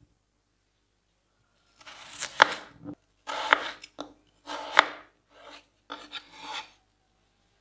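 Chef's knife slicing through a peeled raw potato on a wooden end-grain cutting board: each cut is a short rasp of the blade through the potato ending in a sharp knock on the board. There are three firm cuts about a second apart starting some two seconds in, then two lighter ones.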